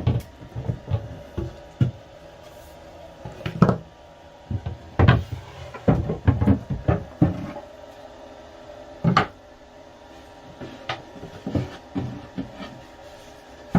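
Wooden cupboard doors and panels being opened and lifted out, with irregular knocks and clatter.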